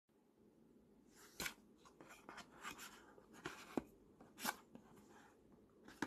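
Faint handling noises: a few soft clicks and rustles as a USB-C docking hub is picked up and turned over in the hand, over its cardboard box.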